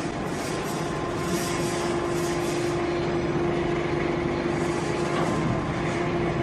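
Large sawmill machinery running: a steady mechanical noise with a constant hum held throughout.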